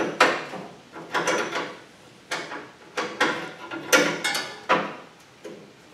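Half-inch tubing wrench clinking and scraping against a transmission cooler line fitting at the radiator as it is worked loose, in about six short bursts.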